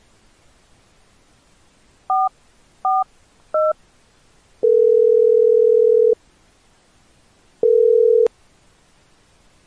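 Phone keypad beeps as 988 is dialed: three short two-note tones. Then the ringing tone plays twice, and the second ring is cut short by a click as the call is picked up.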